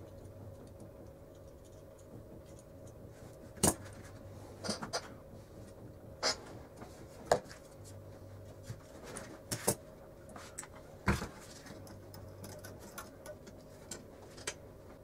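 Scattered clicks and knocks of hand tools being handled and set down on a table, among them a steel caliper and a bench vise. About eight to ten separate sharp taps come a second or so apart, over a faint steady hum.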